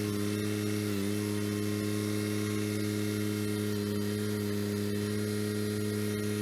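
Kubota BX23S sub-compact tractor's three-cylinder diesel engine running at a steady speed, with a slight dip in pitch about a second in.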